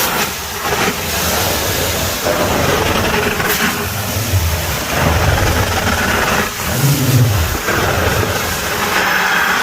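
Carpet-cleaning truckmount vacuum drawing through a cleaning wand: a loud, steady suction hiss with low rumbling surges a few times as the wand works the carpet.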